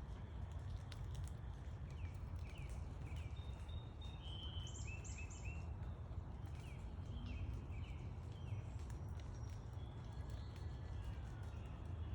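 Backyard songbirds calling in short repeated chirps and quick down-slurred notes, with a cluster of higher notes about five seconds in, over a steady low rumble.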